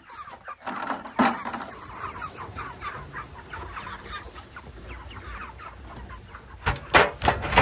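A flock of meat chickens clucking continuously, with one loud knock about a second in and a quick run of knocks or bangs near the end.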